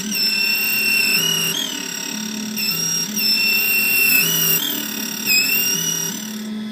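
Computerised key-cutting machine cutting a cylinder key: a high whine from the spinning cutter that dips briefly in pitch a few times as it bites into the blank, over a lower motor hum that steps back and forth between two pitches as the carriage moves.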